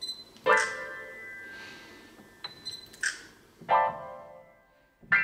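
Piano chords struck loudly and left to ring and fade, two about three seconds apart with another at the very end. Short hissy clicks fall between them.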